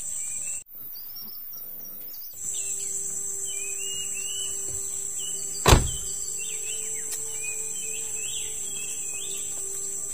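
Steady high-pitched insect drone with birds chirping, broken off briefly near the start. About halfway through there is a single thump, a car door shutting.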